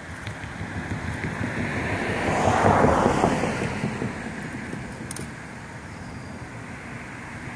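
A passing car: its road noise swells, peaks about three seconds in, then fades away over a second or two.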